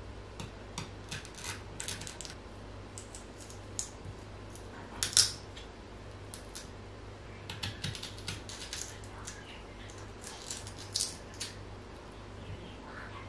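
Scattered light clicks and knocks of kitchen utensils being handled, some in quick clusters, with one louder knock about five seconds in, over a low steady hum.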